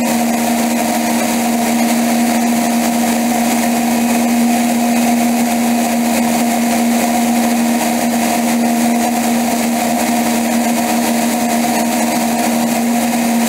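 Small aircraft engine running steadily at constant throttle in flight, one unchanging pitch, with a loud rush of wind noise over it.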